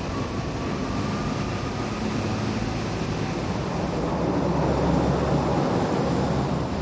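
Kubota utility vehicle's engine running as it drives past close by inside a concrete-lined tunnel, over a steady din of tunnel machinery. The low rumble grows louder about four seconds in as the vehicle comes nearest.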